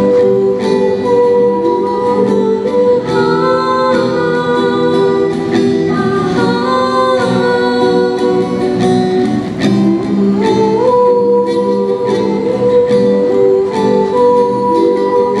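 Live song: two girls singing into microphones, accompanied by a strummed acoustic guitar.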